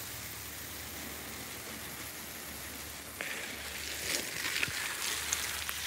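Water spraying from a garden hose onto potted plants and mulch: a steady hiss and patter. It gets a little louder about three seconds in, with a few scattered taps.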